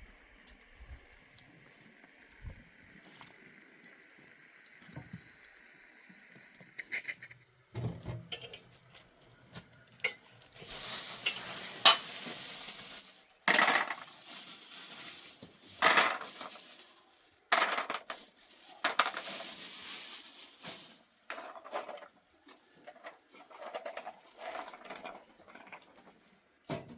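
Metal pots and utensils clattering and scraping in irregular bursts, with a few sharp clinks, starting about seven seconds in after a stretch of faint, steady background.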